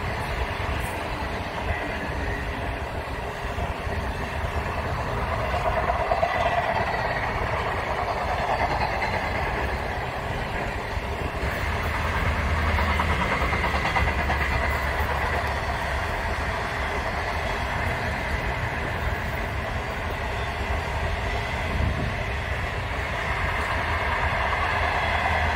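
Long stainless-steel passenger train's carriages rolling past on the rails, a steady rumble of wheels on track that holds at an even level throughout.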